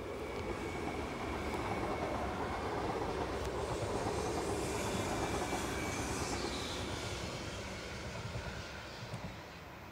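Hitachi ETR 521 'Caravaggio' double-deck electric multiple unit passing at speed. The rumble of its wheels on the rails swells to a peak about halfway through, then fades as it draws away.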